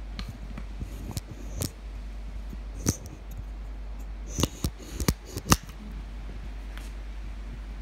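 Futsal ball and shoes knocking on a hard tiled floor: a few scattered sharp taps, then a quick cluster of them around five seconds in, the loudest near five and a half seconds, over a steady low hum.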